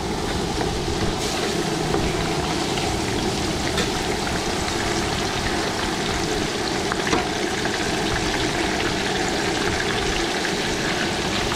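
Tilapia frying in hot oil: a steady sizzle with scattered small pops.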